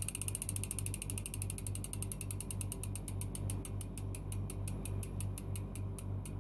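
Bicycle freewheel hub ratchet clicking as a wheel spins freely. The pawls give a fast, even run of ticks that gradually fade.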